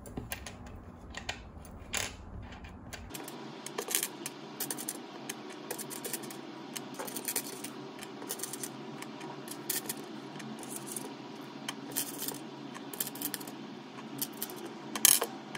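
Tiny plastic Jenga blocks clicking and tapping as they are set one by one on a hard table top and on each other, building a miniature tower: irregular light clicks, with a sharper one near the end.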